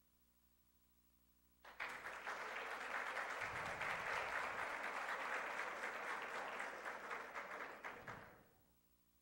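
Audience applauding, a dense patter of many hands clapping that starts about two seconds in, holds steady for about six seconds and stops shortly before the end.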